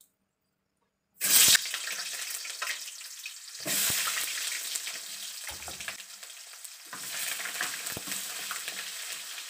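Sliced onions dropped into hot oil in a stainless steel wok: a sudden loud sizzle about a second in, then steady frying that swells again a little later, with a few knocks and scrapes of the spatula stirring them.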